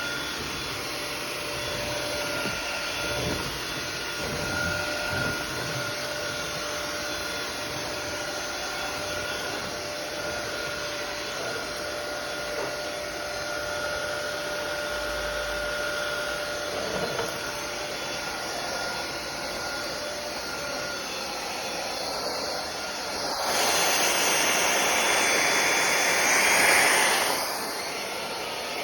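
Belife cordless stick vacuum running, a steady motor whine over the rush of suction air, with a few low knocks in the first few seconds. Near the end the air rush grows much louder for about four seconds, then drops back.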